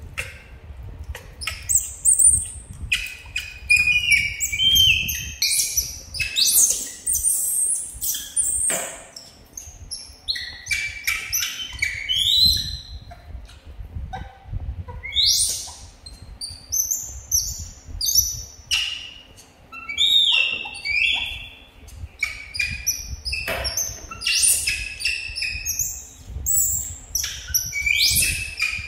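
Young macaques giving many short, high-pitched squeals and chirps throughout, several sweeping sharply upward in pitch. They are food-begging calls made while quail eggs are peeled in front of them.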